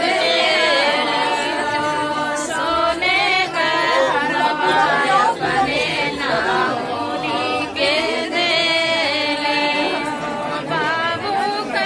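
A group of women singing a traditional tilak ceremony folk song together, unaccompanied, in wavering sustained lines without a break.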